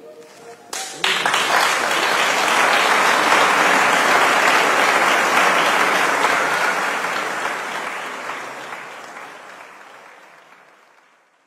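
Audience applause breaking out about a second in, after the final sung note dies away, then fading out near the end.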